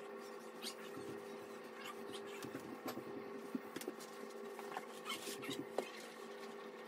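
Faint rustling and scattered light clicks of a cord mesh ball net being untangled and handled, over a steady faint hum.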